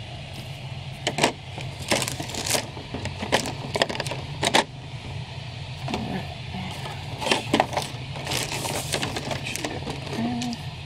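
Clear plastic packaging bags crinkling and crackling as hands handle them, in irregular sharp crackles, over a steady low hum.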